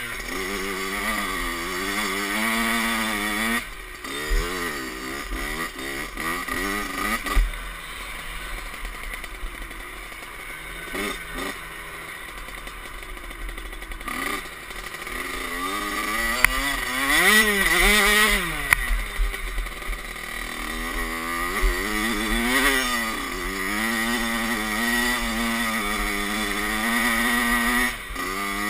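Kawasaki KX65 two-stroke dirt bike engine with a Pro Circuit expansion pipe and silencer, revving up and down as the bike is ridden. Its pitch rises and falls over and over, and it is loudest about seventeen seconds in.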